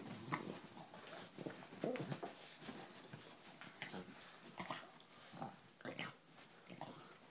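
Two small dogs play-fighting over a rope toy, making short, irregular vocal noises: brief higher-pitched squeaks mixed with lower grunting sounds.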